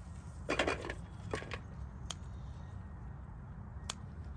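Kitchen work: a few short, sharp knocks and clicks, a quick cluster about half a second in and single ones around one and a half, two and four seconds, over a low steady hum.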